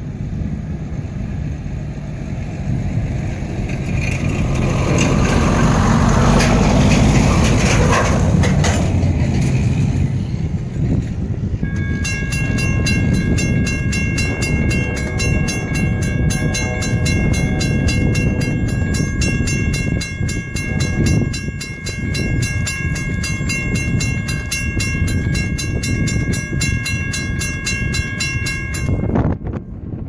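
A rumble that swells and fades over the first ten seconds, then a railroad grade-crossing bell ringing in steady, evenly spaced strikes from about twelve seconds in, cutting off near the end as the crossing clears.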